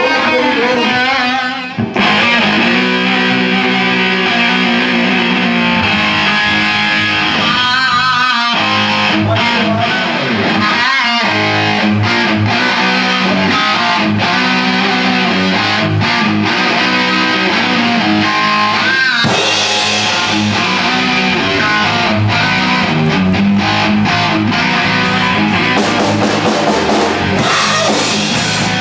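Electric guitar on a full hollow-body Xavier XV-950 playing a rock riff through an amplifier, alone at first. About two seconds in, drums and a full band come in, and the rock jam carries on loud and steady.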